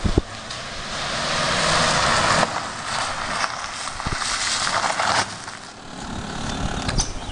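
A Ford sedan's tyres crunching over a gravel driveway as it pulls in slowly, with its engine running underneath. The crunching is loudest about two seconds in, eases off and swells again.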